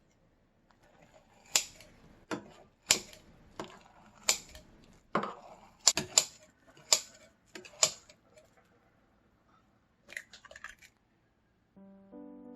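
Crisp green laver (parae) crackers crunching, about a dozen sharp crunches in the first eight seconds and a quick run of smaller ones a little later. Background music starts near the end.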